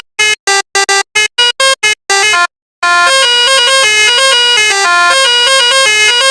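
Telolet multi-tone bus horn playing a tune: a quick string of short staccato toots, a brief pause about two and a half seconds in, then a longer unbroken run of notes stepping up and down in pitch.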